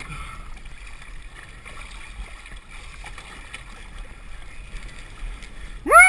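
Light water sloshing and gurgling beside the boat as a released lake trout swims off. Near the end a loud rising 'woo' whoop breaks in.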